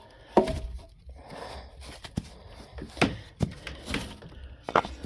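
Short lengths of 2x4 lumber being pulled out and handled, giving a handful of sharp wooden knocks and clunks as the blocks hit each other and the ramp frame.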